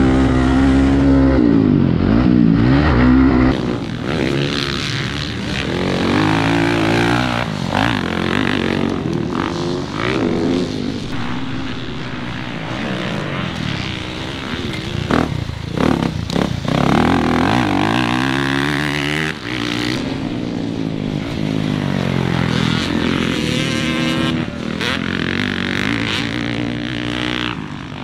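Motocross bikes revving hard and easing off, the engine pitch rising and falling with each burst of throttle. For the first three seconds or so one bike's engine is close and loud; after that the bikes are heard from further off as they accelerate and ride the track.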